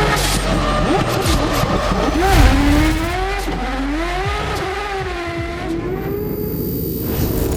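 Drift car's engine at high revs, its pitch swinging up and down again and again as the throttle is worked through a drift.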